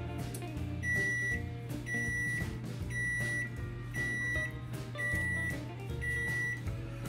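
Samsung range's oven beeping six times, about once a second, each a steady half-second tone: the preheat-complete signal as the oven reaches its set 350°F. Background music plays underneath.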